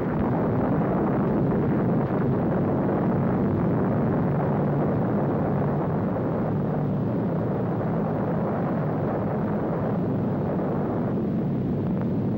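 Steady, continuous rumbling roar of the Operation Crossroads atomic bomb blast and its rising cloud, as laid on the newsreel soundtrack; it thins a little near the end.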